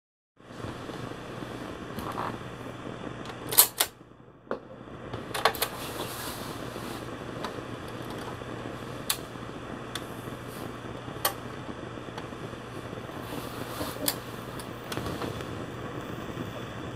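Record turntable running with a 45 rpm single on the platter: a steady low hum and hiss, broken by sharp clicks from handling the deck and its tonearm, the loudest pair about three and a half seconds in.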